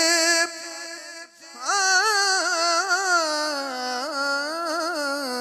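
A man singing a Punjabi naat into a microphone. A long held note fades down about half a second in. About a second and a half in, a new phrase begins with wavering, ornamented pitch.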